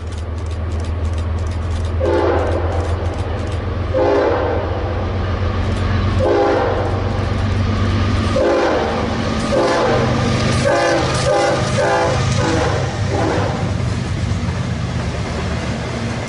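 Diesel freight locomotive air horn sounding three separate blasts, then a quick run of shorter ones, over the low rumble of the locomotive engine and train.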